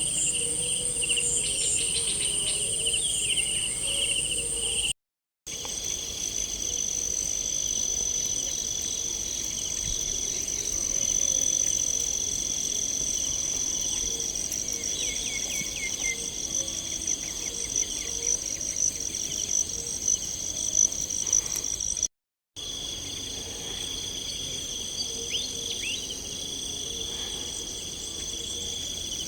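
Chorus of crickets and other insects, a continuous high-pitched trilling in several layered tones. The sound cuts out completely for a moment twice, about five seconds in and again near 22 seconds.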